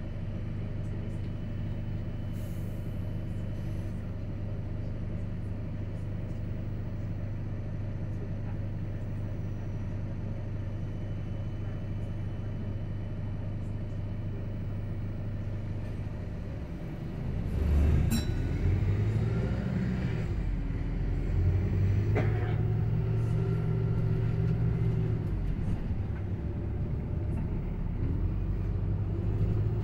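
Hybrid double-decker bus heard from the upper deck: a steady low hum while it stands still, then about two-thirds of the way through it pulls away with a click and the engine note rising and falling as it gathers speed.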